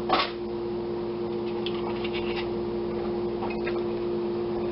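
A steady low hum of a few fixed tones, with a short rustle near the start and a few faint light clicks.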